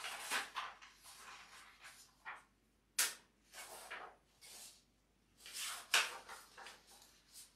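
Sheets of paper being handled and shuffled: a string of short, irregular rustles and crinkles, with a sharper snap about three seconds in.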